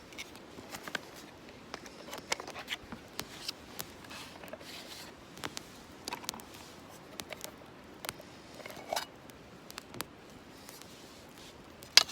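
Scattered light clicks, taps and short scrapes at an irregular pace, with one sharper, louder click near the end.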